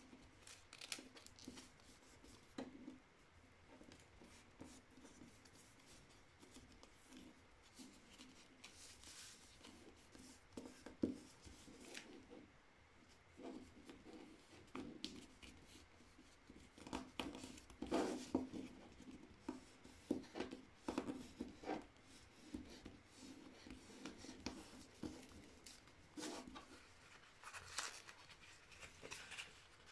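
A sheet of printer paper being folded and creased by hand: faint, intermittent rustling with short crisp scraping crinkles, busiest about halfway through and again near the end.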